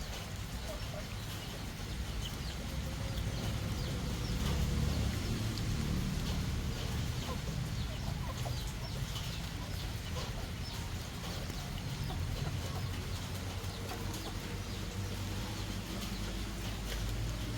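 Chickens clucking over a steady low rumble.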